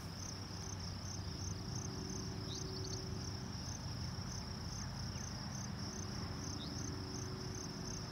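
Steady, high-pitched trill of field insects such as crickets, pulsing evenly, over a low outdoor rumble.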